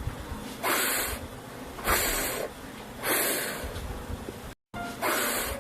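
A voice making the letter F's sound, a hissing 'fff', four times, each about half a second long and roughly a second apart, over soft background music.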